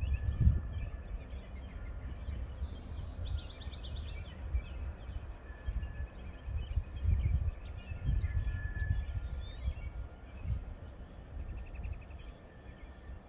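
Outdoor ambience of wind gusting on the microphone, with small birds chirping and giving short trills.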